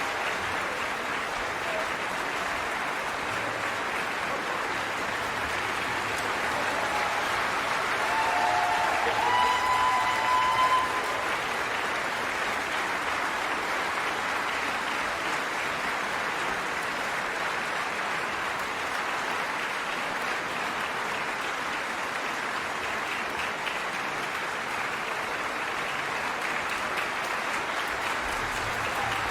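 Concert audience applauding steadily. A brief voice calls out above the clapping about nine seconds in.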